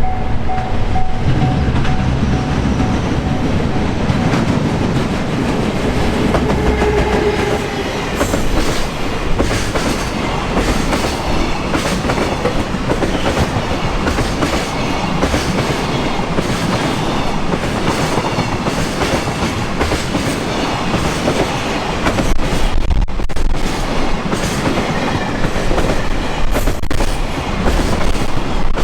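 Freight train passing over a level crossing, its wheels clacking over the rail joints in a fast run of clicks.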